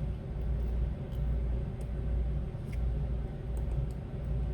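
Low steady hum, with a few faint light clicks of a small screwdriver working at an iPhone 7's tri-wing screws.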